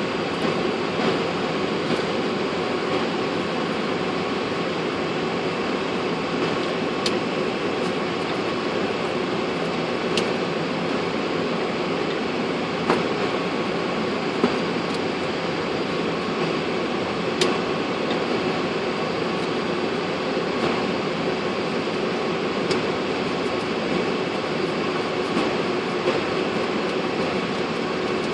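Steady cockpit air-conditioning and equipment-fan noise in a parked Boeing 747-400 with its APU running, with a few sharp clicks now and then.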